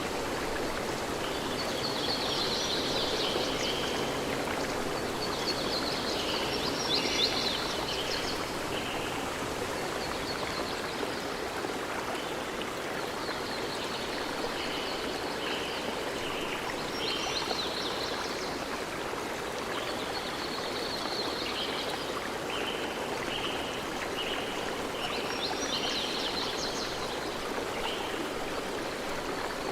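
A stream flowing steadily, with short high-pitched calls repeating over it in irregular clusters.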